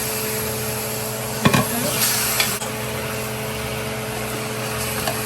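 Red curry paste frying and sizzling in oil in a large pot while it is stirred, with a single sharp knock about a second and a half in.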